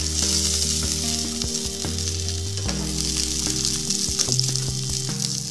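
Sliced garlic frying in foaming melted butter in a frying pan: a steady sizzle.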